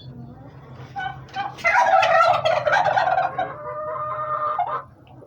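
Heritage-breed domestic turkey gobbling. A few short calls about a second in lead into a loud, fast-rattling gobble, which trails into a steadier held call that stops just before the end.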